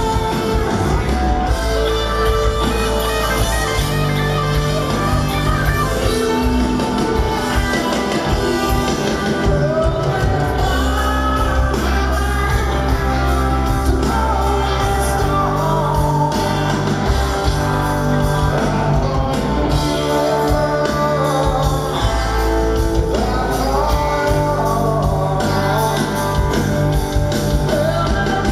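Live rock band playing: electric guitars, bass guitar and drums, with vocals over them, heard from the crowd.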